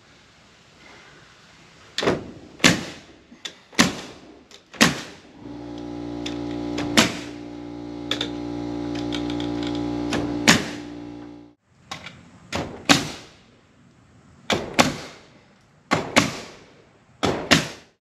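Nail gun firing nails into oak boards: about a dozen sharp shots, several in quick pairs. A steady motor hum runs for about six seconds in the middle and cuts off suddenly.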